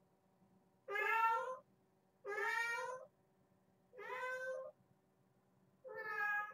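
A kitten meowing four times, each meow under a second long with its pitch rising, spaced about one and a half to two seconds apart.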